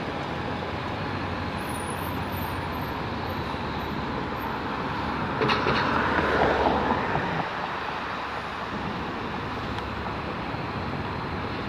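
Steady city street traffic noise, swelling for about two seconds around the middle as a vehicle passes.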